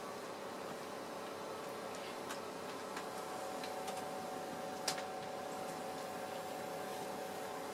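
Model railway locomotive running along the track: a steady electric-motor hum with scattered light ticks of the wheels over rail joints and points. A higher motor tone joins about three seconds in, and there is one sharper click about five seconds in.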